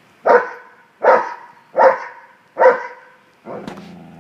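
Dog barking four times, evenly spaced under a second apart, then a longer, lower drawn-out call near the end.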